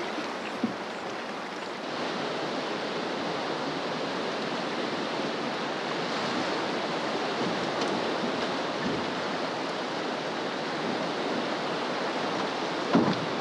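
The Green River running fast at high water, a steady rushing wash of current and whitewater around a drift boat. A small click sounds about half a second in.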